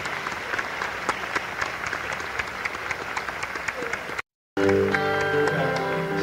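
Live audience applauding, cut off by a brief silence about four seconds in; then a live band comes in with sustained held chords.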